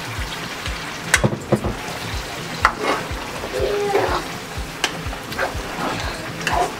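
A spoon stirring blended pepper and tomato into onions and hot oil in a metal pot: wet sizzling, with sharp taps of the spoon against the pot every second or two.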